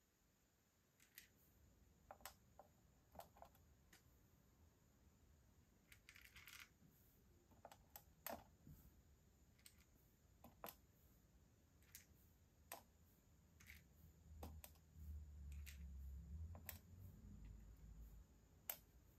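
Metal tweezers picking small plastic Perler beads out of a bead box and setting them onto a plastic pegboard: faint, light clicks at about one a second, with a short rattle of beads about six seconds in. A low rumble runs under the clicks in the last few seconds.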